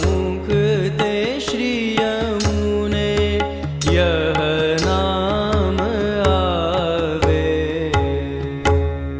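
A male voice singing a devotional Hindu pad in long, ornamented lines over tabla and a steady held accompaniment. The voice falls away near the end while the instruments go on.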